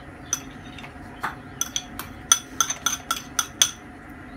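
Tableware clinking: about a dozen light, sharp clinks with a short metallic ring, coming quickly one after another through the middle.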